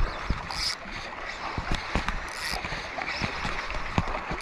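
Small sea waves washing against shoreline rocks, with two short hissing surges and scattered light clicks and knocks.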